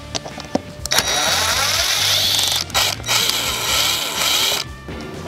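Ryobi cordless driver backing out the screws of a door deadbolt: the motor whirs for about a second and a half, stops briefly, then runs again for about a second and a half.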